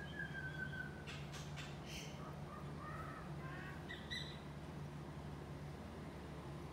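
Bird calls: one falling whistled call, then a few short chirps and squawks with some sharp clicks between them, over a steady low background hum.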